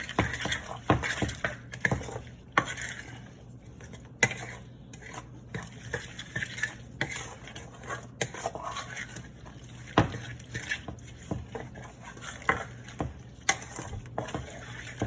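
Thick mayonnaise salad dressing being stirred in a bowl, the utensil knocking and scraping against the bowl in irregular clicks.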